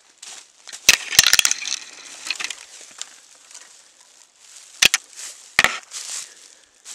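Footsteps crunching through dry leaf litter, with sharp snaps of sticks underfoot: a cluster about a second in and two more near the five-second mark.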